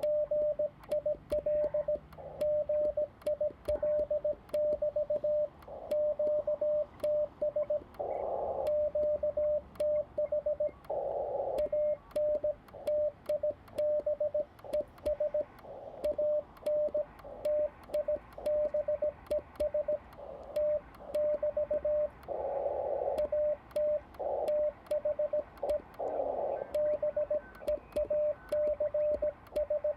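Morse code (CW) from a Xiegu G90 transceiver: a single steady tone of about 600 Hz keyed on and off in quick dots and dashes. In a few short gaps the radio's narrow filter passes a brief rush of band hiss.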